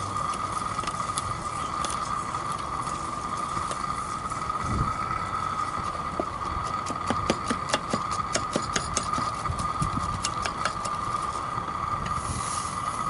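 Propane furnace burner running with a steady hiss and a constant tone in it, under a pot of hot lye solution. A run of sharp clicks and crackles comes in the middle as silica gel crystals are stirred into the lye with a wooden spoon. Near the end a brief hiss comes as more crystals are poured into the pot.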